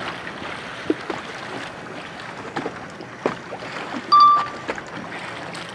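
Steady wind and water noise around a fishing boat, with scattered light knocks and a brief high-pitched tone about four seconds in.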